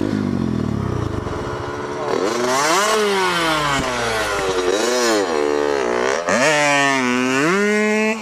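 Small dirt bike engine revving up and down while riding, starting low, then rising and falling in pitch three times and holding high near the end.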